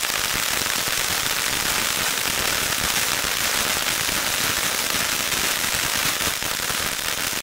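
Shiny Star Lemon Tree firework fountain in its crackling phase: a dense, continuous crackle of many small pops, cutting off abruptly at the very end.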